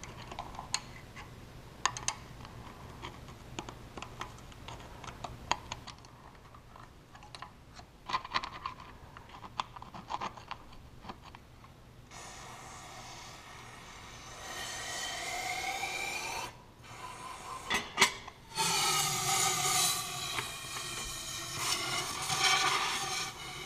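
Scraping and light clicking as the EGR port is cleaned out by hand, then from about halfway a carburetor-cleaner spray hissing in long bursts with a whistling tone that rises, loudest near the end. A couple of sharp knocks come just before the last, loudest burst.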